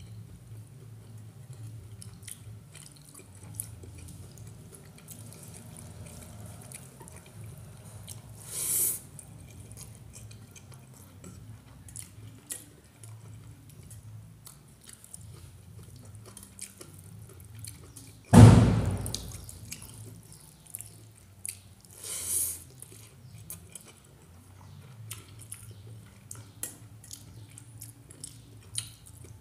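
Wet eating sounds from a meal eaten by hand: chewing and small wet mouth clicks of rice and little fish curry, with fingers picking at a steel bowl. Two short louder wet noises come about nine and twenty-two seconds in, and a single loud thump about eighteen seconds in.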